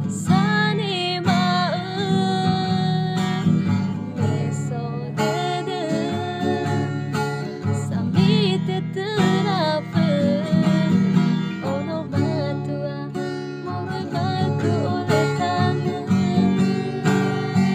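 A woman singing with her own strummed acoustic guitar accompaniment, holding some notes with vibrato.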